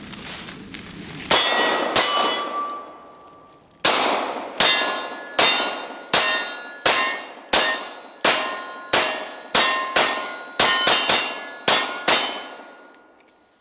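H&K USP 9mm pistol fired in a steady string of shots at steel targets, about one every 0.7 seconds and quickening near the end. Each shot is followed by the ringing clang of the struck steel plates.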